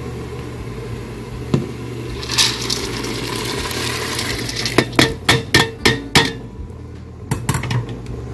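Dried navy beans poured from a stainless colander into a steel pot of water: a short rush of pouring, then a quick run of sharp metallic knocks and clinks about five seconds in, with a few more near the end, over a steady low hum.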